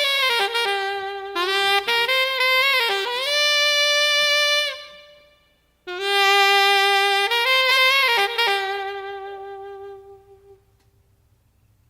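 Background music: a single melodic line of long held notes, in two phrases that each fade out.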